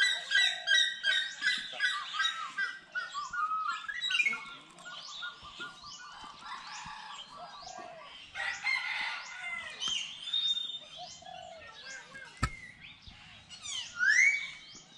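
Many birds calling at once: dense overlapping chirps and short sweeping calls, thinning out after the first few seconds, with a single sharp knock a little past twelve seconds in.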